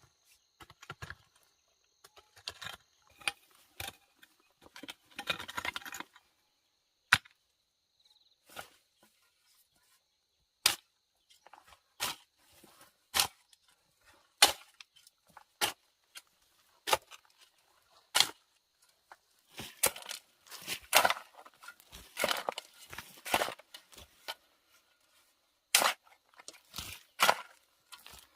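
Sharp knocks and cracks of wood being worked by hand, irregular, about one every second or two, with bursts of rustling and crackling around five and twenty seconds in.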